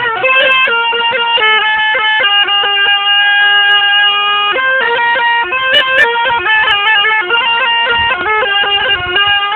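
Grandpa imitating a zurna with his voice, carrying a folk melody in quick stepped notes, with one long held note about two to four seconds in.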